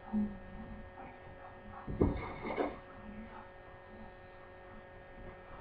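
A drinking glass used as a biscuit cutter comes down with one dull thud on a floured wooden cutting board about two seconds in, amid quiet handling of the dough. A steady electrical hum runs underneath.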